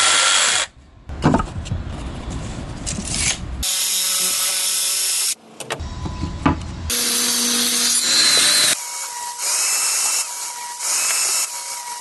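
A string of short woodworking clips that switch abruptly every second or two: power saws cutting wood, sandpaper rubbing on a board, and sharp knocks between them.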